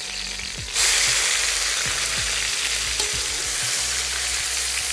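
Beef (Tafelspitz) searing in hot oil in a cast-iron Dutch oven, sizzling steadily. The sizzle jumps louder a little under a second in, as the turned meat is laid back into the oil.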